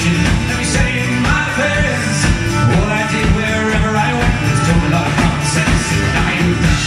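Folk-rock band playing live, with acoustic guitar, mandolin, banjo and a drum kit keeping a steady beat.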